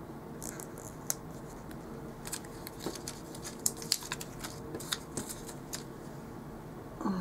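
Paper planner stickers and sticker sheets being handled, peeled and pressed onto the planner pages: scattered light crackles and ticks over a faint steady hum.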